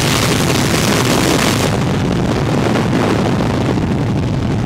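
Strong wind rush over the microphone of a car moving at highway speed, mixed with the low drone of racing car engines. The hiss from the wind drops away about a second and a half in.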